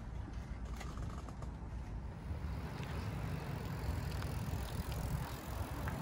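Steady low rumble of a vehicle driving, heard from inside, with a few faint rattles and clicks over it. It grows slightly louder near the end.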